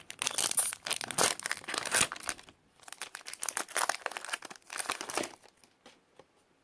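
Foil wrapper of a Pokémon TCG booster pack crinkling and tearing as it is ripped open. Dense crackling for about five seconds, then only a few faint rustles near the end.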